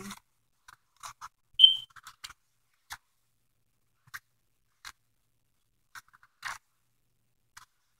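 Pages of a thick paperback workbook flipped quickly, giving scattered short paper rustles and flaps. There is one brief high squeak about a second and a half in, the loudest sound.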